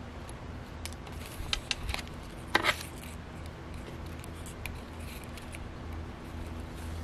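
Handling noise from a handmade paper journal being worked by hand: paper and binding cord rustling, with a few light clicks and one louder rustle about two and a half seconds in. A low steady hum runs underneath.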